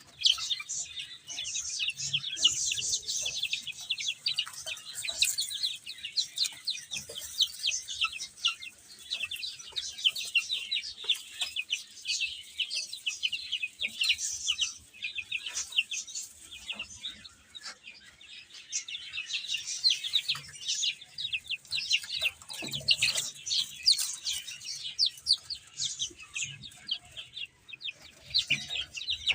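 A group of baby chicks cheeping constantly, many short high-pitched peeps overlapping.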